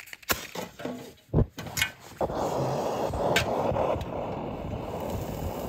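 A few scratches and knocks as a match is struck. About two seconds in, a camping stove burner catches and then burns with a steady rushing noise.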